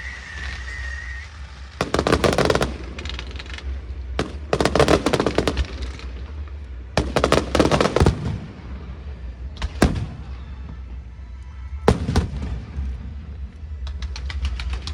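Fireworks going off in volleys of bangs and crackle every two to three seconds. A whistling shell fades out in the first second, and fast crackling comes near the end.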